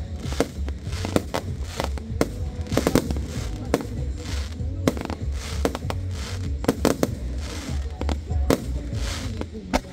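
Aerial fireworks display: shells bursting in a rapid run of sharp bangs, about two a second, some doubled close together, with music playing underneath.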